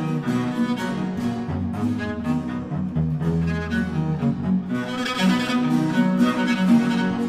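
Background music: a cello concerto, solo cello playing with string accompaniment.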